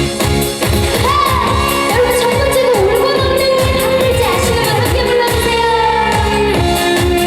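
Upbeat trot-style pop music with a steady beat and a sliding lead melody over it.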